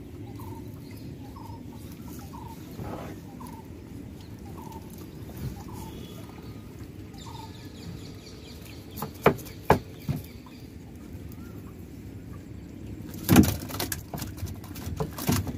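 A bird repeats a short falling call about once every half second to second through the first half. About nine seconds in come two sharp knocks, and near the end a louder run of knocks and splashing as a wet cast net is hauled into the boat.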